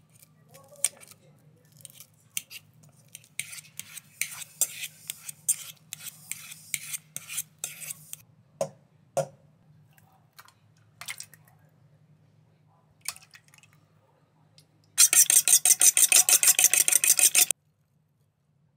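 A fork mashing banana chunks in a stainless steel bowl, with irregular scraping and clinking of the tines on the metal. Later, eggs are beaten in a metal bowl: a loud, fast, even run of clinks, about eight a second, lasting a couple of seconds.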